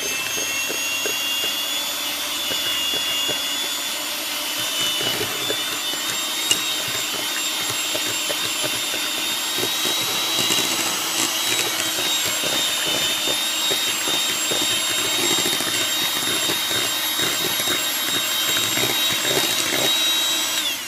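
Electric hand mixer running steadily with a high whine, its twin beaters whipping a thick cream cheese and mango filling in a glass bowl; the motor cuts off suddenly at the very end.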